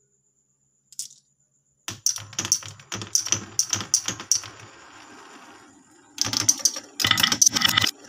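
Glass marbles clicking and clattering on a wooden spiral marble-run track as they are let in and roll around it. A single click comes about a second in, then a quick run of clacks, a softer rolling rumble in the middle, and a dense clatter near the end.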